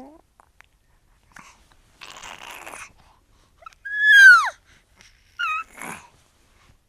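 A baby or young child's non-word sounds. First a breathy huff, then a loud high squeal that slides steeply down in pitch, a short wavering squeak and another breath.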